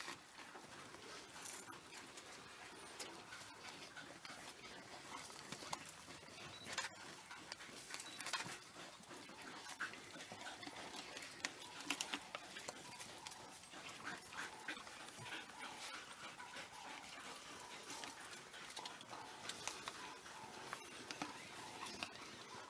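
A pack of African wild dogs feeding on a fresh impala kill: irregular tearing, chewing and crunching noises over a steady hiss.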